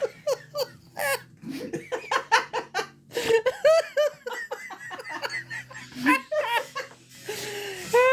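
Several men laughing hard in bursts, in a small room.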